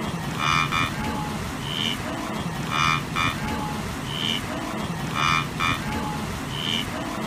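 Wildebeest calls, a short recording played in a loop that repeats about every two and a half seconds.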